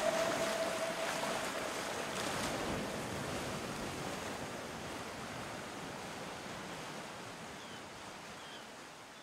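A held tone dies away in the first second or so, leaving a steady rushing noise that fades slowly out.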